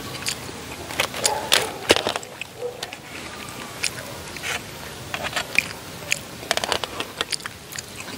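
Metal forks clicking and scraping against a clear plastic takeaway tray, in irregular sharp clicks that cluster in the first couple of seconds and again near the end, mixed with chewing.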